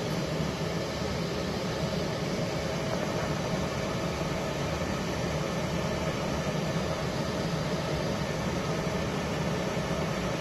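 Steady machine hum with an even rush of air, as from the cooling fans of a running CO2 laser marking machine, unchanging throughout.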